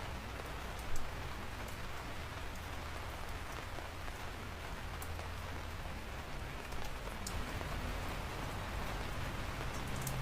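Steady rain falling, with a few sharp drop ticks scattered through it and one louder hit about a second in.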